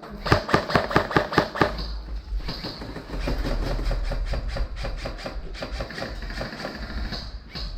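Airsoft gun firing a rapid full-auto burst of regular sharp cracks, about seven a second, that stops a little under two seconds in. A denser, fainter rattle of airsoft fire follows over a low rumble.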